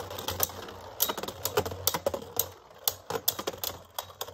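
Two Beyblade spinning tops spinning and clashing in a plastic stadium: a run of sharp, irregular clicks and clacks as they knock into each other and the bowl walls.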